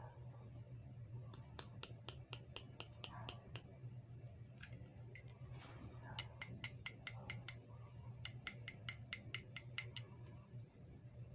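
Three quick runs of small, sharp clicks, about six a second, from plastic toy parts or packaging being worked by hand, over a low steady hum.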